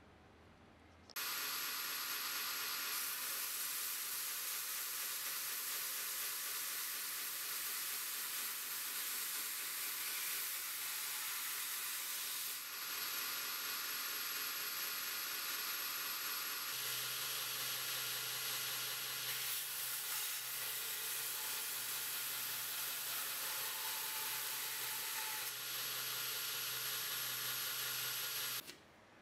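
Belt grinder grinding an AEB-L stainless steel knife blank: a loud, steady, harsh hiss of the abrasive belt on the steel, with a low motor hum joining about halfway through. It starts and stops abruptly.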